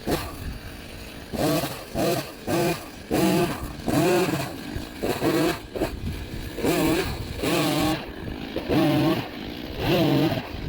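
Chainsaw cutting firewood, its engine pitch surging up and dropping again in short pulses about once a second as the throttle is worked and the chain bites into the wood.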